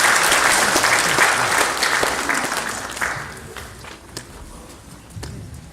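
Audience applauding, dying away after about three seconds into a few last scattered claps.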